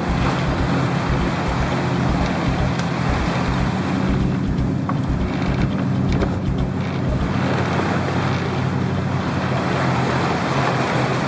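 Wind buffeting the microphone and water rushing past the hull of a racing sailboat under way, over a steady low hum.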